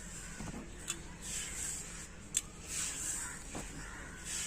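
Faint rhythmic scraping of a stone roller rubbed back and forth on an ammi grinding stone, crushing fried whole spices, with two light clicks of stone on stone.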